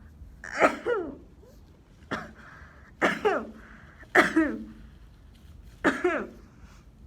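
A girl with a feverish cold and sore throat coughing over and over, in five or six short voiced bouts every second or so, several of them doubled.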